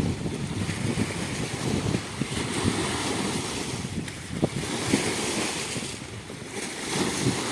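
River waves washing onto the shore in a strong wind, practically sea surf, the hiss swelling and fading every couple of seconds, with wind buffeting the microphone.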